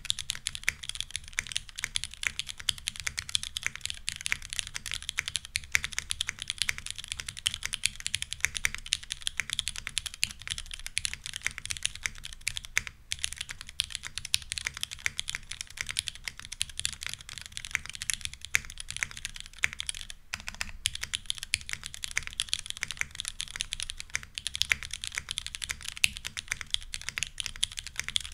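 Continuous fast typing on a mechanical keyboard with lubed vintage West German Cherry MX Black linear switches on an aluminium plate, O-ring mounted, with GMK keycaps: a dense stream of key clacks with brief pauses about 13 and 20 seconds in.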